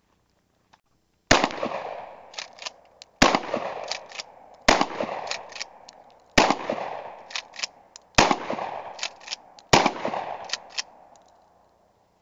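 Winchester SXP 12-gauge pump-action shotgun fired six times, a shot every one and a half to two seconds. Each report dies away and is followed by the sharp clacks of the pump being racked to chamber the next shell.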